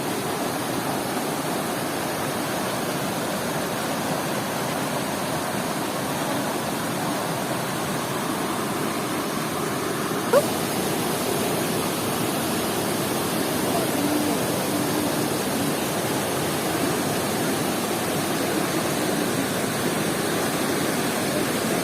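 Steady rush of a waterfall, water pouring and splashing continuously. A single short sharp sound about halfway through.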